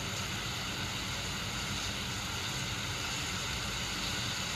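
Steady rushing noise of storm wind and water, with low buffeting rumble from wind on the microphone.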